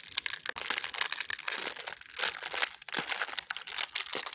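Plastic trading-card pack wrapper crinkling as hands work it open, a dense run of crackles; the pack is fiddly to open.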